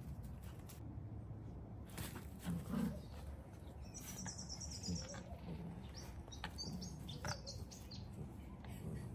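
Birds chirping in short clusters a few times, over soft low grunts and scuffles from two dogs play-wrestling on grass.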